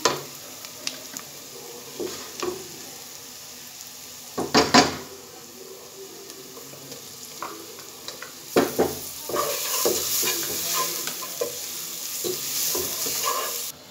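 Onions and spices frying with a sizzle in a nonstick pot, stirred with a wooden spoon that scrapes and clicks against the pan. There is a loud scrape about four and a half seconds in. The sizzle grows louder and brighter a little past halfway, as ginger, garlic and green chilli paste goes into the hot oil.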